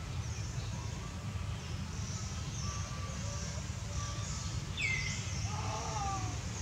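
Outdoor ambience: a steady low rumble with faint bird chirps throughout. About five seconds in, a high call sweeps downward, followed by a short pitched call.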